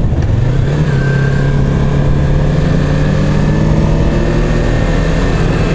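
Yamaha MT-25's parallel-twin engine running at steady revs while riding, its pitch rising slightly near the start and then holding level.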